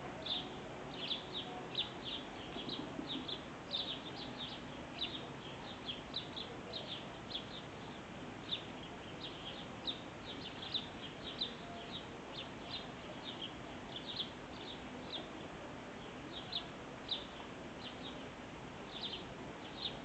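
Birds chirping: a run of short, high chirps, about two a second, over faint background noise.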